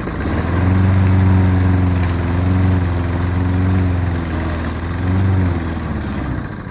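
Small engine of a walk-behind lawnmower catching and running for about six seconds, its pitch wavering slightly, then dying out near the end: the mower starts but won't keep running.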